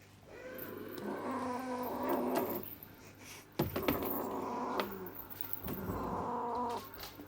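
Cornish Rex kittens meowing in three drawn-out calls, with a sharp knock about halfway through.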